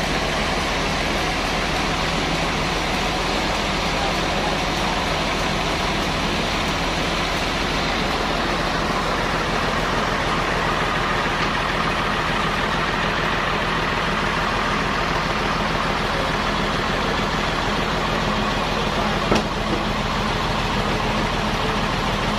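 Sawmill machinery running steadily: an even engine-like hum under a haze of mechanical noise, with a single sharp knock near the end.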